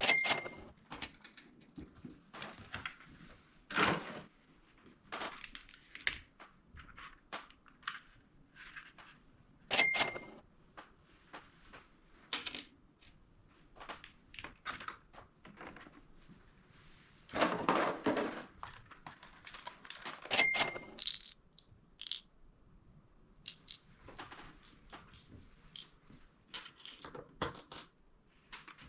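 Plastic packaging and tackle being handled: crinkling, tearing and small clicks and taps. Three brief ringing dings stand out, about ten seconds apart.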